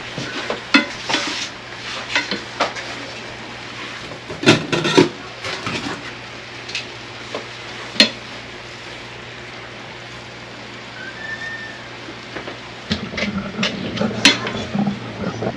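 A cooking utensil knocking and scraping against a frying pan as ground sirloin is chopped up while it fries, over a low sizzle. The knocks come in busy clusters, with a quieter stretch of sizzling in the middle.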